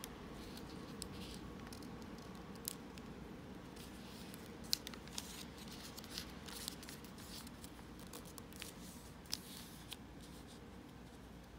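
A sheet of origami paper being folded and creased by hand: scattered crinkles and sharp little paper clicks, the loudest about halfway through and again near the end, over a steady low room hum.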